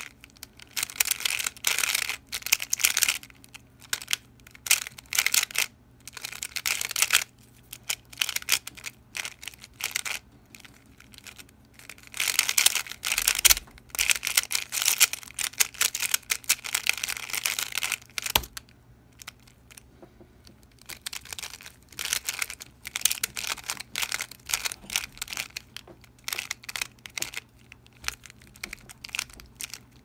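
Square-1 puzzle's plastic layers being turned and sliced rapidly during a speedsolve: bursts of fast clacking clicks with short pauses between them.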